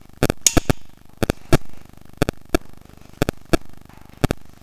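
Ratcheting crimping tool clicking as its handles are squeezed a notch at a time, sharp clicks mostly in pairs about once a second. The terminal pin is being set in the jaws before the wire goes in.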